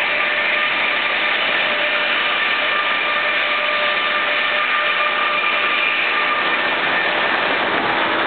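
Sawmill headrig saw cutting through a large white pine log as the carriage feeds it past the blade: a loud, steady mill noise with a faint high whine that fades about six or seven seconds in.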